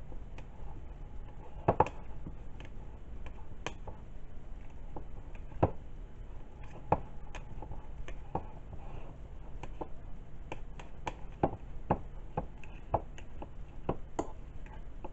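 Fork mashing bananas in a bowl: irregular clicks and taps of the fork tines against the bowl, with a few louder knocks about two seconds in and again around six to seven seconds.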